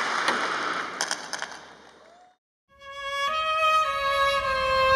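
Audience applause thinning out with a few last scattered claps and fading away, a half-second of silence, then slow music with long held notes begins and swells.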